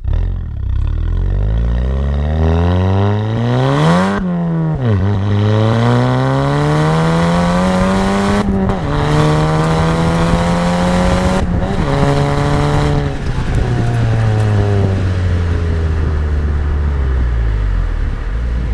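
Volkswagen MK7 GTI's turbocharged 2.0-litre four-cylinder heard at the exhaust tip, with a 3-inch Unitronic downpipe fitted, accelerating hard through the gears. The note climbs in pitch and drops at three upshifts roughly four seconds apart, then winds steadily down as the car slows near the end.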